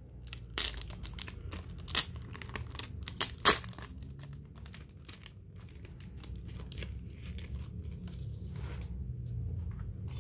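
Merch packaging being torn open and crinkled by hand, with a few sharp rips in the first four seconds followed by lighter rustling and crackling.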